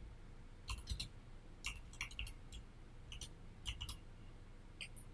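Faint clicking of computer keys in short bursts of a few strokes each, with pauses between.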